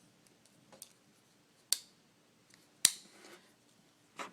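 Folding blade of a Mossy Oak hunting multi-tool being opened: two sharp clicks about a second apart, with a few faint ticks around them, as the stainless gut-hook blade swings out and locks into place.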